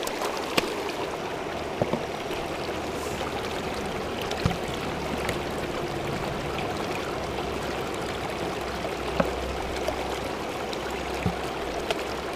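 Shallow creek water flowing steadily over rocks, with a few short sharp clicks and small splashes as a plastic gold pan is worked in the current.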